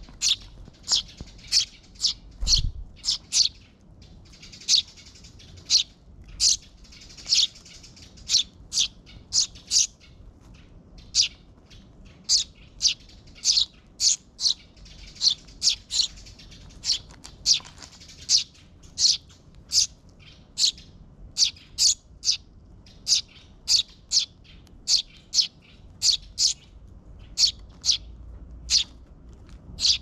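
Eurasian tree sparrow fledglings giving short, high begging chirps, about two a second without a break, calling to be fed by the parent birds.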